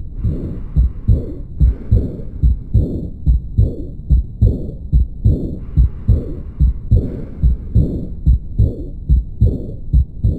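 Recorded heart sounds: a regular run of low lub-dub thumps, about two to three a second, with a hiss laid over the beats near the start and again past the middle.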